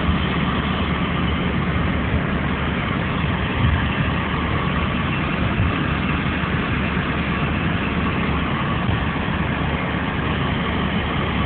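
Heavy diesel engine running steadily at a low, even pitch, with a constant noisy hiss over it.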